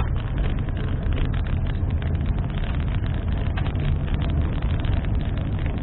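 A car driving at a steady pace, heard from inside the cabin: a constant low engine and road rumble.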